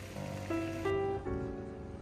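Background instrumental music: a gentle melody of held notes, moving to a new note about every half second.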